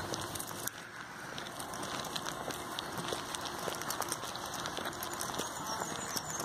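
Footsteps walking through grass, a steady rustle scattered with many irregular light clicks and crackles.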